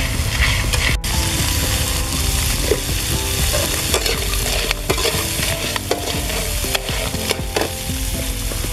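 Small crabs sizzling as they fry in a steel wok, with a metal spatula scraping and clinking against the pan as they are stirred.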